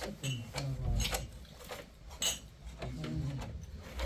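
A few sharp clinks and knocks of objects being handled, over low, murmuring voices.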